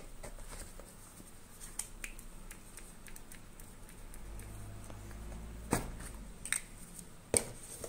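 A few scattered, sharp little clicks and knocks from hands handling a small plastic spray bottle and a cleaning-pad roller over a cardboard box.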